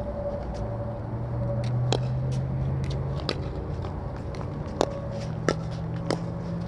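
Pickleball paddles striking the plastic ball in a rally: a series of sharp pops roughly a second apart, some fainter, over a steady low hum.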